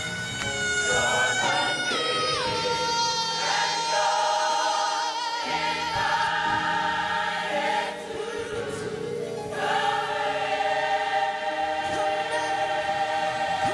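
Gospel choir singing long held chords. The pitch steps down early on and wavers in vibrato, the sound thins briefly about eight seconds in, and a new full chord comes in at about ten seconds.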